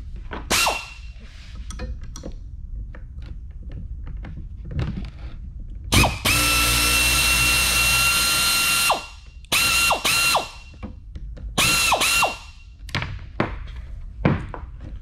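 Handheld power tool run in short triggers on the leaf spring's side clasps: a brief burst near the start, one run of about three seconds in the middle, then four short bursts that each wind down when released. Clicks and metal knocks from the work come in between.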